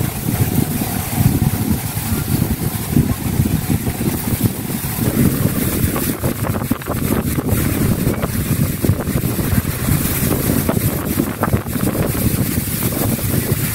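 Strong wind buffeting the microphone: a loud, uneven rumble that rises and falls with the gusts.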